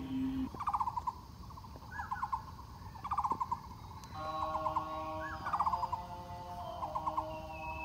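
Wild birds calling: short stuttering trills of rapid pulses, several times, and short hooked notes that rise and fall back, over steady held tones.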